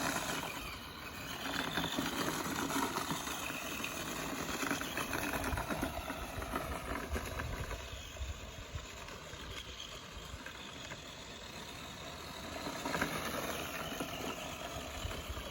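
Battery-powered electric motor of a vintage radio-controlled car whining as it is driven, its pitch rising and falling with the throttle; the car is weighed down by an action camera on top and labouring.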